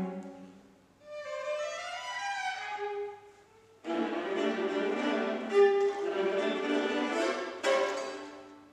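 Orchestra with violins and cellos playing live contemporary classical music. A softer phrase whose notes climb and then fall comes about a second in; after a short pause the full strings come in suddenly and loud just before four seconds, with a sharp accented chord near the end before the sound dies away.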